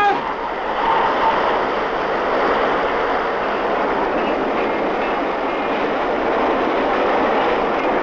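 Steady mechanical rumble and rattle of a ship's deck machinery as its mooring lines are cast off.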